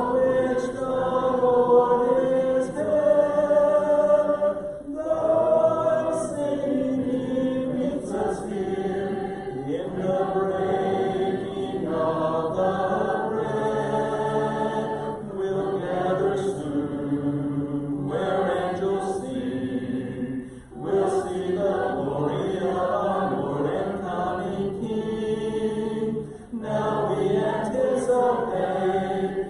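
A congregation singing a hymn a cappella, many voices in parts with no instruments, in phrases a few seconds long with brief breaks between them.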